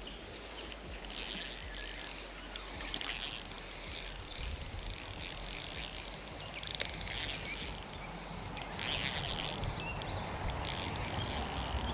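Fishing reel ratcheting in repeated bursts as a hooked rainbow trout is played and reeled in.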